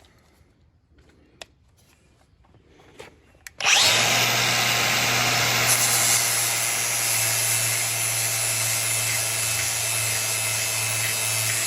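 Angle grinder switching on a few seconds in and running steadily, grinding the cutting edge of a steel lawn mower blade to sharpen it. A few faint clicks come before it starts.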